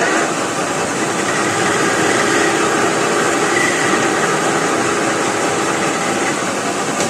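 Metal lathe running with its four-jaw chuck spinning, a steady machine noise, while the tool turns a taper on the end of a steel workpiece.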